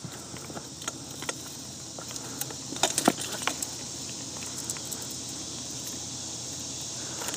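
Sand tipped from a digger scoop onto a sifter: a faint gritty patter with a few small clicks and rattles in the first few seconds, then a steady low hiss.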